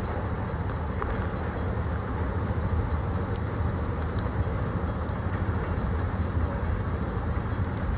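Steady low rumble of an idling vehicle engine with a few faint ticks.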